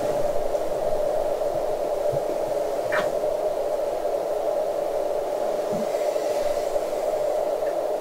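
Steady whooshing noise from a small white noise machine running beside a bed, with a faint rustle of bedding about three seconds in.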